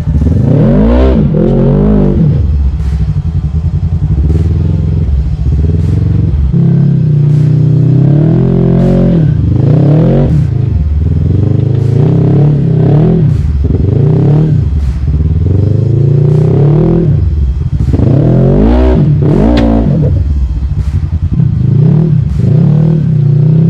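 Polaris RZR side-by-side engine revving up and dropping back again and again, its pitch climbing and falling every second or two.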